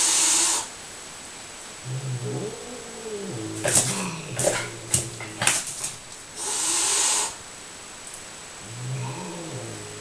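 Cornered cat hissing and growling defensively: a hiss at the start, a low wavering growl about two seconds in, a run of sharp spits between about four and five and a half seconds, another long hiss near seven seconds and a last short growl near the end.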